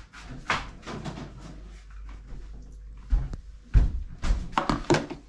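Kitchen handling sounds: a refrigerator door and plastic food containers being knocked and clattered as they are taken out, with a run of sharp knocks in the second half.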